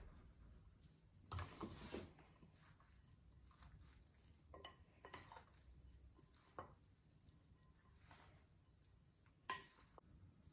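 Two wooden spoons tossing a noodle, meat and vegetable filling in a glass mixing bowl: faint soft stirring with a few light knocks and scrapes of wood on glass, the clearest about a second and a half in and again near the end.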